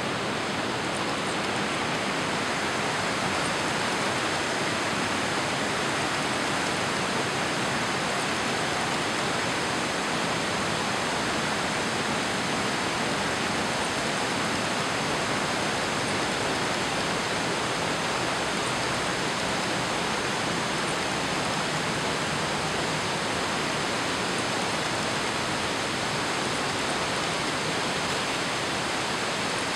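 Daisen Falls, a single-drop waterfall, pouring into its pool: a steady, even rush of falling water with no breaks.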